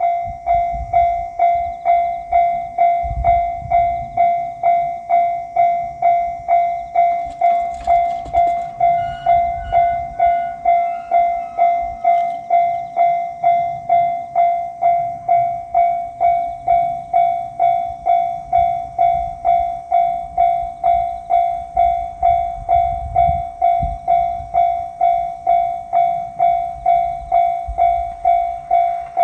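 Japanese railway level-crossing warning bell ringing its repeating 'kan-kan' strikes, about two a second, each a bright ringing tone, with a low rumble underneath.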